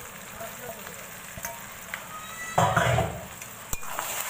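Curry sizzling in a steel wok while a metal spatula stirs and scrapes through it, with scattered clicks of the spatula on the pan. About two and a half seconds in there is a louder scraping clatter, and a sharp tap comes shortly after.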